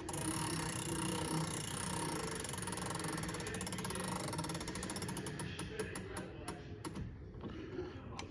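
Grandfather clock being wound with a crank key: the winding drum's ratchet clicks rapidly and steadily as the weight is drawn up. The clicks thin out to separate ones about five seconds in and fade near the end.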